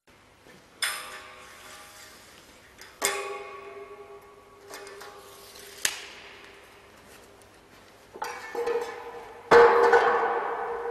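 Metal pipe clanging and ringing: single knocks at about one, three and six seconds, then a quick run of knocks near the end with the loudest among them. Each knock leaves a clear ring that dies away slowly.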